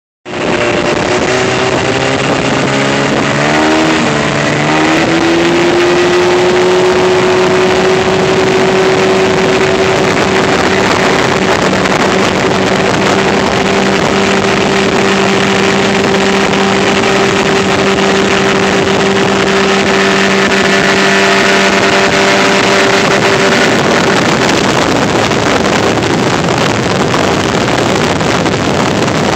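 25 hp Evinrude outboard motor pushing a small aluminum boat at speed: its pitch wavers and rises as it is throttled up a few seconds in, then holds steady. Near the end the engine note is buried under the rush of water and spray off the stern.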